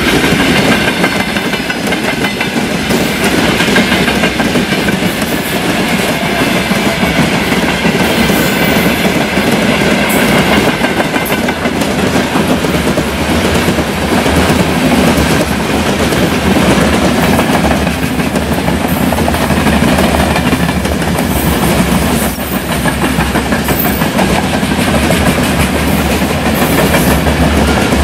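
Freight train wagons, open gondolas and then hopper cars, rolling past at speed close by: a loud, steady rumble and clatter of steel wheels on the rails.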